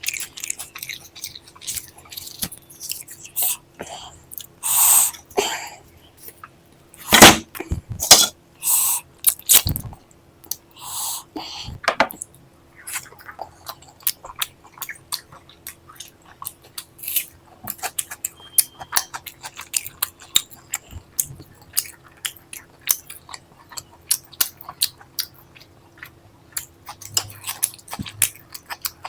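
Close-miked chewing and mouth sounds of someone eating a meal: many quick wet clicks and smacks, with a few louder bursts of noise about 5 seconds in and between 7 and 10 seconds.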